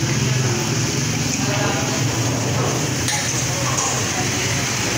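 Background voices and steel ladles clinking against large steel cooking pots of broth, over a steady low hum.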